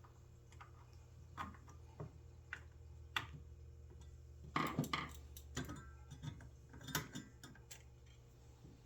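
Irregular small clicks and taps from hand tools working on the bent fan blades of an old Craftsman belt sander's motor, with a denser run of sharper knocks about halfway through. A low steady hum sits underneath.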